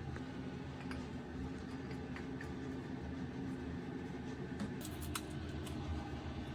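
Light clicks and taps from handling and fitting faucet parts, with a short run of sharper clicks about five seconds in, over a steady low hum.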